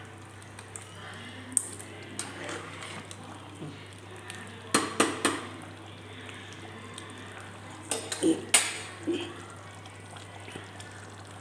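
Metal ladle stirring thick curry in a pressure cooker pot and clinking against the pot's sides and rim, with three quick clinks about five seconds in and another cluster about eight seconds in, over a low steady hum.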